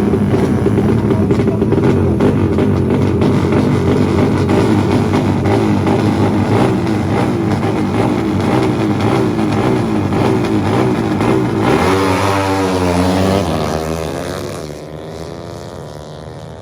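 250cc motorcycle engine running loudly through a Herex racing exhaust. The note holds steady, then about twelve seconds in it swings up and down in pitch and fades away near the end.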